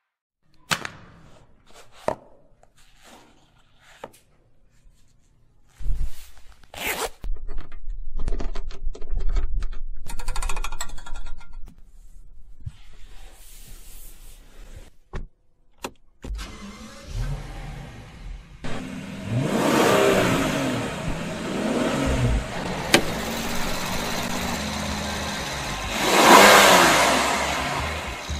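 Rolls-Royce car sounds: a few sharp clicks and knocks, then its twin-turbo V12 running, its pitch rising and falling with the revs, swelling loudest near the end as the car sweeps past.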